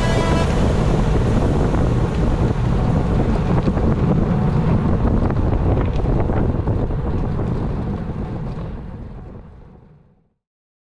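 Wind buffeting the microphone of a camera on a road bike moving at about 20 mph: a steady rushing that fades out near the end.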